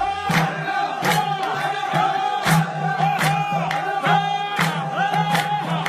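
Music with chanting voices over a held drone, and sharp percussion strokes keeping a steady beat.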